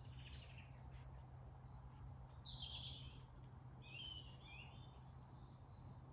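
Near silence outdoors, with faint bird chirps: a few short calls near the start, around the middle and about four seconds in.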